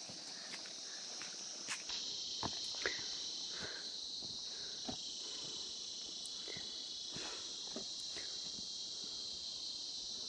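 A steady, high-pitched insect chorus, with irregular soft footsteps on a dirt path.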